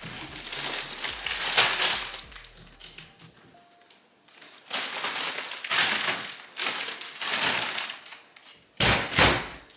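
Rustling and crinkling of grocery packaging and plastic bags in several bursts, with light knocks, as groceries are put away into kitchen cabinets.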